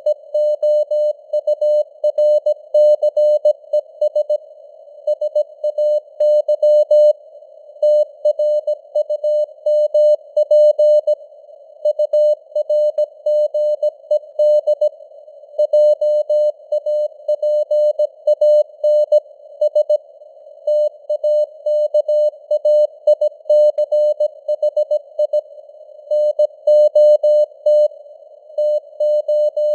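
Morse code at 17 words per minute: a single steady tone keyed on and off in dots and dashes, over a narrow band of hiss from simulated radio noise, the signal's strength rising and falling as simulated fading (QSB).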